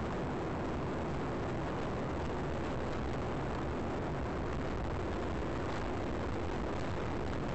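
Steady road and engine noise inside a moving car, picked up by a dashcam microphone: an even hiss with no distinct tones.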